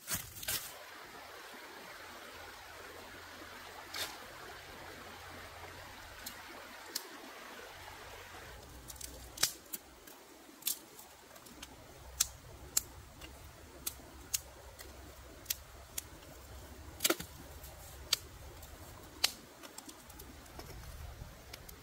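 Food cooking in a wok over a fire: a soft hiss for the first several seconds, then sharp, irregular pops and crackles, roughly one a second.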